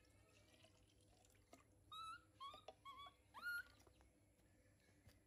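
A hungry baby macaque giving a quick series of about five short, high whimpering calls a couple of seconds in, some gliding up or down in pitch.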